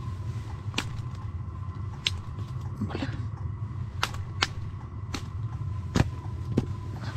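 Scattered sharp knocks and taps, about eight in all, the loudest about six seconds in, as whitefish and a wooden-handled knife are handled on the floor of an ice-fishing tent. Under them runs a steady low rumble and a faint steady tone.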